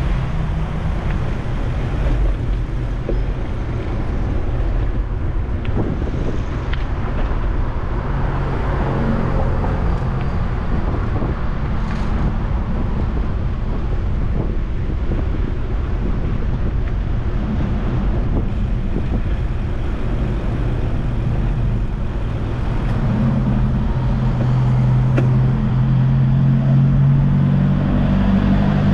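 Road traffic: cars and other motor vehicles running along the street, with an engine hum that grows louder near the end as a vehicle comes close.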